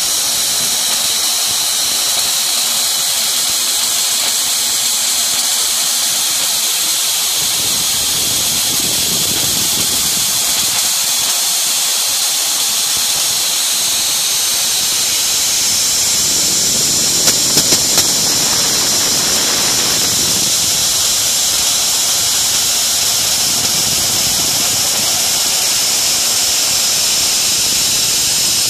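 X2 CNC mini mill running an end mill through MDF: a steady, loud high hiss with a high-pitched whine from the spindle and cutter. Three short clicks come about two thirds of the way through.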